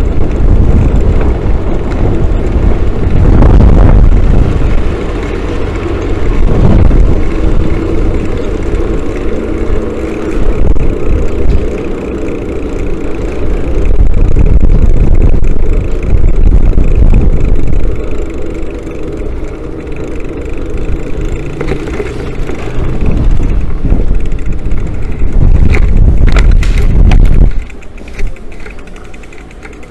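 Road bicycle riding along a road, with heavy wind buffeting on the microphone and tyre noise; a few sharp clicks come near the end, then the rush drops off suddenly as the bike slows.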